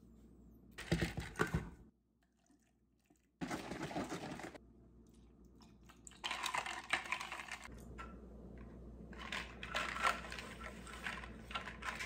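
Clicking and clattering of cups and containers being handled in a kitchen, in four short bursts, with soy milk being poured into a plastic cold cup of iced coffee. The sound cuts out completely for about a second and a half near the start.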